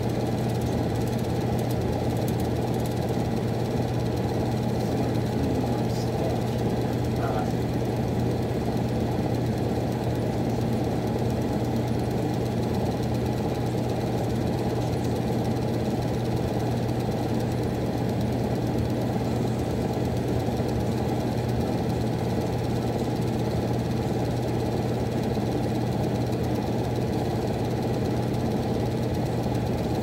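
Miller E2 furnace running: a steady, even hum and rumble of its blower, with a strong low tone that stays constant throughout.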